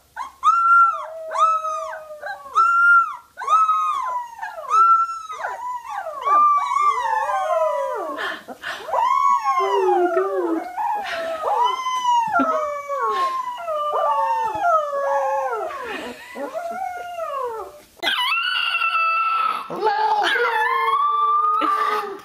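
Young puppies howling in a string of short, arched cries, about two a second at first, then several pups howling over one another. Near the end a corgi puppy takes over with longer, steadier howls, with a lower second voice alongside.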